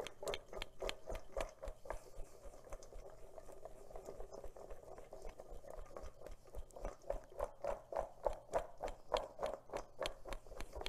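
Oiled sweet potato strips tossed in a stainless steel mixing bowl: a quick run of soft knocks and slides against the metal, about four a second, with the bowl ringing faintly underneath.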